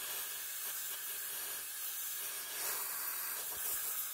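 Steady hiss of compressed air from a long blow-gun nozzle held in a cylinder-head valve guide, blowing the guide out after an acetone rinse so no grit is left to scratch it.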